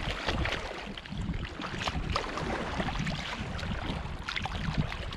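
Footsteps wading through shallow water over a stony river bed in flip-flops, with irregular splashes and sloshing at each step. Wind buffets the microphone.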